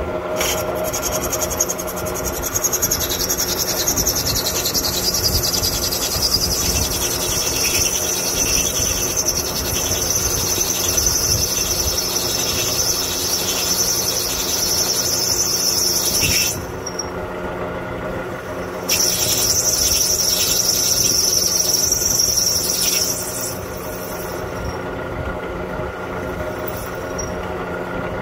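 Drill press running, its twist drill boring out a stripped head-stud hole in an air-cooled VW engine case to take a steel case-saver insert. The cutting gives a high-pitched whine over the steady motor hum; the whine drops away about 16 seconds in, comes back some two seconds later, and eases off near the end while the press keeps running.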